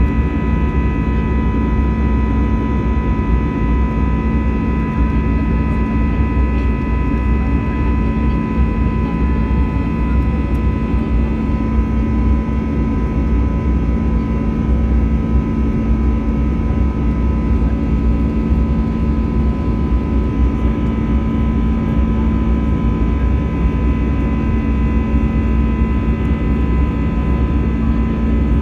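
Jet airliner's turbofan engines heard from inside the passenger cabin in flight: a steady, even engine noise with several constant whining tones over it.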